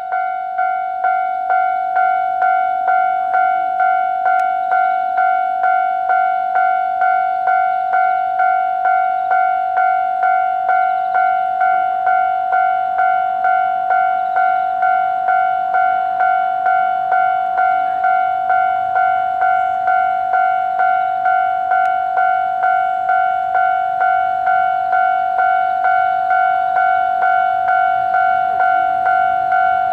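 Japanese railway level-crossing alarm ringing its electronic bell tone, a steady 'kan-kan' repeating at about two strikes a second, warning that a train is approaching.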